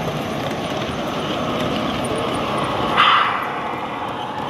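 Model trains running on an exhibition layout, a steady rolling noise mixed with hall background noise. About three seconds in, a single short, loud sound cuts through it.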